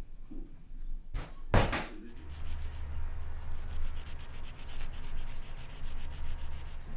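Two sharp thumps about a second and a half in, then sidewalk chalk scraping on rough pavement in quick, rhythmic strokes over a low steady rumble.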